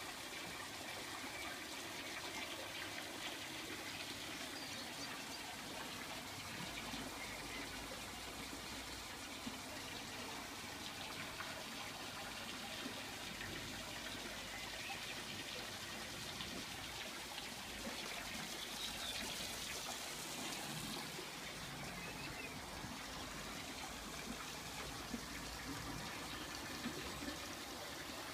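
Steady trickle of running water from a garden pond.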